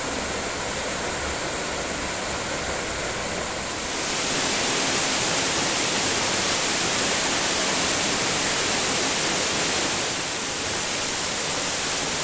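Waterfall rushing: a steady, dense hiss of falling water that gets louder about four seconds in and eases slightly near ten seconds.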